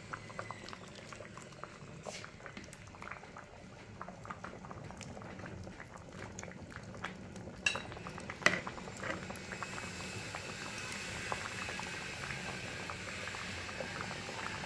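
Pot of chilacayote squash soup bubbling at a boil, with a steady fizz of small pops. Two sharp knocks come about eight seconds in.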